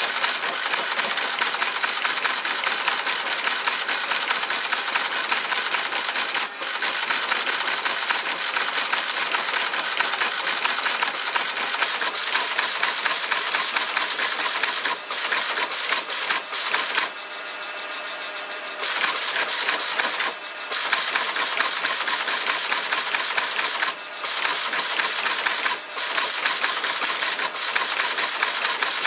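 Teletype FRXD reperforator/transmitter running: a steady, rapid mechanical clatter from the typing reperforator's punch and the walking-head tape reader, broken by several short pauses. For about two seconds in the middle the clatter stops and only a smoother, steady hum is left.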